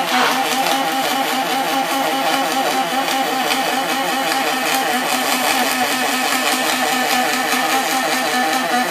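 Robotic arc welding on aluminum: a steady, even buzzing arc with crackle.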